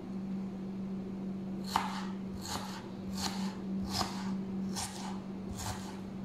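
Kitchen knife chopping ginger on a plastic cutting board: six even cuts a little under a second apart, starting near two seconds in, the first the loudest. A steady low hum runs underneath.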